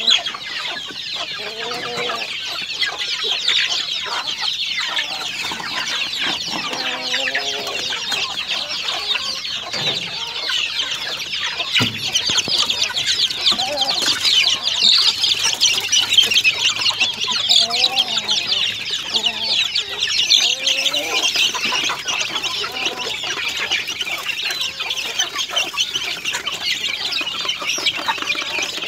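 A brood of young chicks peeping continuously in a dense high chatter. Every few seconds, adult chickens cluck and call below it.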